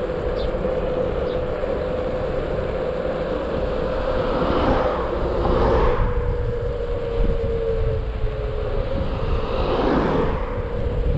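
Xiaomi Mi 1S electric scooter riding at speed: a steady high motor whine over rumbling wind and tyre noise. The whine drops slightly in pitch in the second half as the scooter slows, and two louder swells of rushing noise pass through.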